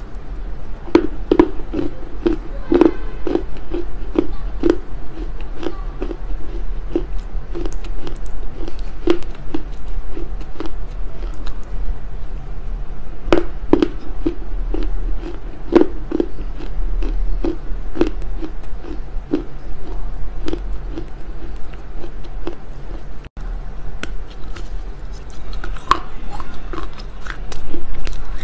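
Smoked Chinese loess clay being chewed and crunched, close to the microphone, at about two chews a second over a steady low hum. There is a louder crunch near the end.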